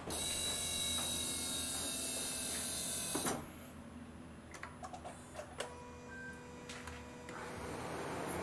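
A Lexus CT200h hybrid powering up. A steady electric whirring buzz lasts about three seconds and stops with a click. A few faint clicks and short tones follow, then a sound that rises steadily near the end as the car's 1.8-litre petrol engine starts up.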